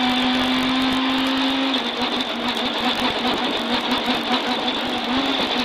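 Rally car engine heard from inside the cockpit, held at steady high revs at full throttle; about two seconds in the steady note breaks off and the revs waver up and down unevenly.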